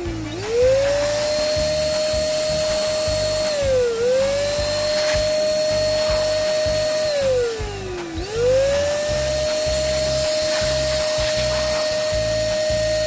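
A toy vehicle's small electric motor whining steadily at high speed. Its pitch sags and climbs back three times, near the start, about four seconds in and about eight seconds in, as if briefly loaded.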